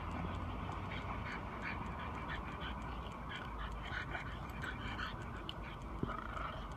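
French bulldog and Chinese Shar Pei puppies play-fighting, making a rapid string of short, nasal vocal noises from their mouths and noses.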